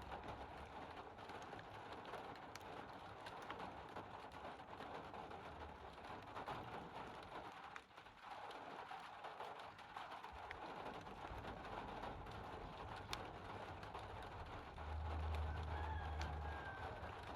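Steady hiss of rain with birds calling faintly over it, and a low rumble about three-quarters of the way in.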